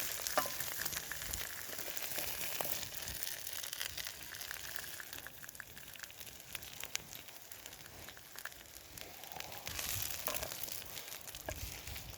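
Burger, bacon and fried eggs sizzling in a frying pan: a crackling hiss that thins out midway and swells again near the end, with a few sharp clicks.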